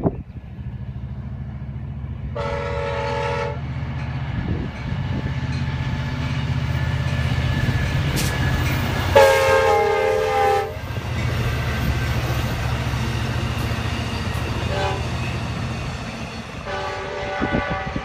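EMD F59PHI diesel locomotive of an Amtrak Capitol Corridor train passing and sounding its multi-note air horn three times: a short blast about two seconds in, the loudest blast about nine seconds in as the locomotive goes by, and a third near the end. A steady low rumble from the train runs underneath.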